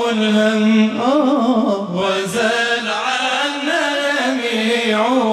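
Arabic devotional song (a qasida of blessings on the Prophet): a voice holding and ornamenting a long sung line, its pitch turning up and down in melismatic runs.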